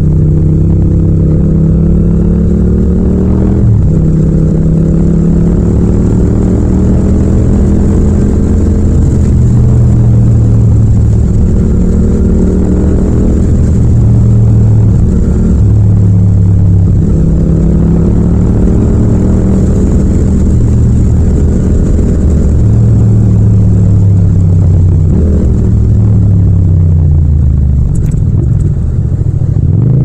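Yamaha MT-07's 689 cc parallel-twin engine through a Yoshimura exhaust, riding under way, its note rising and falling with the throttle. A short dip in pitch a few seconds in, and near the end the note falls as the bike slows and drops from third to second gear.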